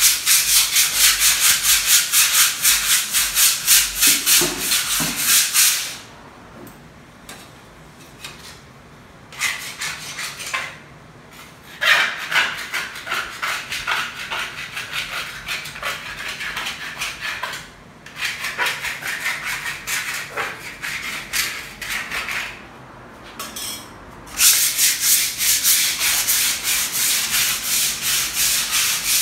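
Sandpaper scrubbed by hand against a painted wall in quick back-and-forth strokes, scraping off loose, peeling paint to prepare the wall for priming. The scrubbing comes in several spells, with short pauses between them.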